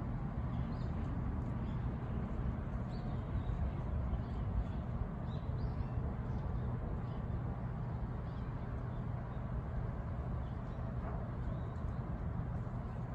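Outdoor ambience: a steady low rumble with faint short high chirps scattered through it.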